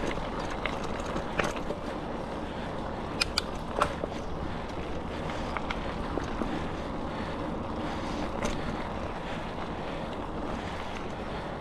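Steady wind noise rushing over the microphone during a trail ride, with a few sharp clicks or knocks scattered through it.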